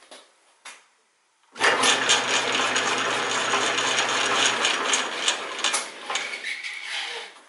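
1940 Sheldon 11-inch metal lathe switched on and running, its motor and gear train turning through the quick-change gearbox set at its slowest feed. The sound starts suddenly about a second and a half in, with a steady hum under a dense rattle of gears for the first few seconds, and dies away near the end.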